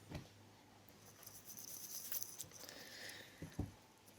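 Faint rustling with a few soft clicks near the end, over a quiet room.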